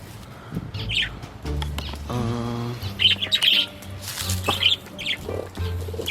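Budgerigars chirping in short clusters of high chirps. There is a brief pitched sound with a buzzy tone a little over two seconds in.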